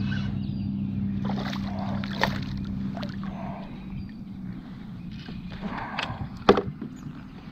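A hooked bass splashing and thrashing at the surface as it is reeled to a plastic kayak, with several short knocks and splashes and a sharper knock against the hull about six and a half seconds in. A steady low hum runs through the first half and fades out.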